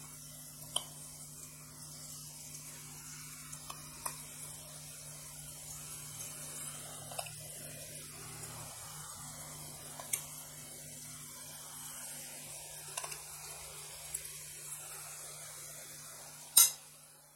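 Battered chicken pakoras frying in hot oil: a steady sizzle, with short spoon clinks every few seconds as pieces are dropped in, and one sharper, louder click near the end.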